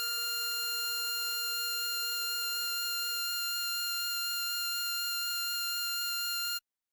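A single harmonica note held long and steady. Its lowest tone drops away about three seconds in, and the note then cuts off abruptly near the end.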